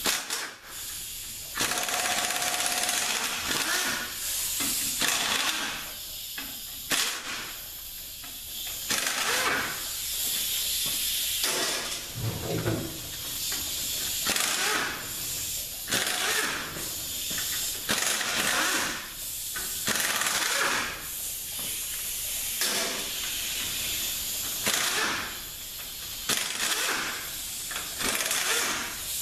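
Pneumatic air tool running in a dozen or more short bursts with a hissing air exhaust, typical of an air ratchet running out the bolts of a transaxle's housing covers.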